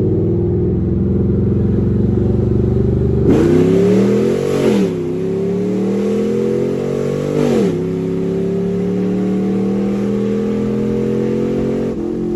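Chevrolet Camaro SS 6.2-litre V8 with long-tube headers and a very loud exhaust. It cruises, then about three seconds in it accelerates hard: two rising pulls, each ending in a quick drop in pitch as it shifts up. It then settles back to a steady cruise.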